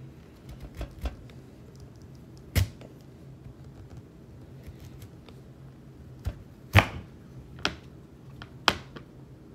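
Chef's knife cutting through a raw sweet potato and knocking on the cutting board: several sharp knocks at uneven intervals, the loudest about seven seconds in.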